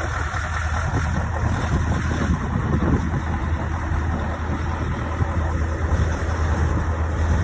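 Scania S650's 16-litre V8 diesel idling steadily.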